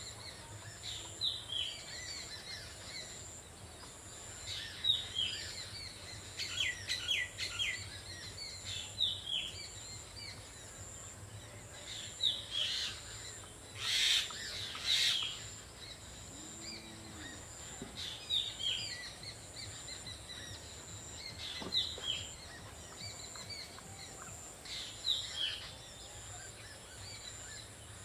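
Small birds chirping, short high calls scattered through, over a quiet outdoor background. About halfway through come two brief louder splashes of water, as cut bottle gourd pieces are rinsed by hand in a steel bowl.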